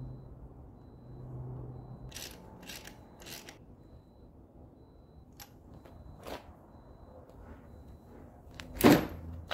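Wrench work tightening a new oil pressure switch into an Onan diesel generator engine: a few short, sharp metallic clicks about two to three seconds in and again around five to six seconds, then one loud sharp knock near the end. A low steady hum runs under the first two seconds.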